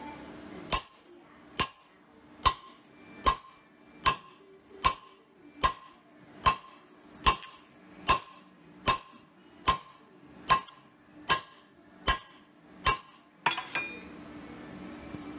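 A hammer striking a steel rod set in a bearing bore: sixteen evenly paced blows a bit under a second apart, each with a short metallic ring, then a few quicker, lighter knocks near the end. Each blow compresses bread packed behind the bearing, so the bearing is forced out of its housing.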